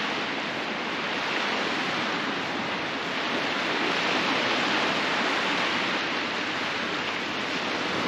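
Steady rush of sea surf breaking along the shore, swelling and easing slightly.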